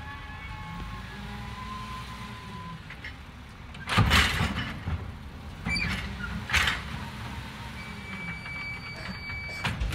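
Automated side-loader garbage truck running while its hydraulic arm lifts and tips a wheeled trash cart. About four seconds in, a loud crash as the cart empties into the hopper, then two sharp bangs about two seconds later, and a steady high whine near the end as the arm comes back down.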